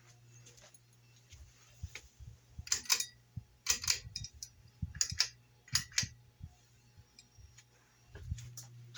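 A series of irregular sharp clicks and knocks, bunched between about two and seven seconds in, over a steady low hum.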